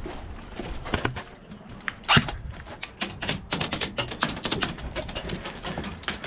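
Airsoft guns firing: a run of sharp, rapid, uneven clicks and snaps, densest in the second half, with one louder crack about two seconds in.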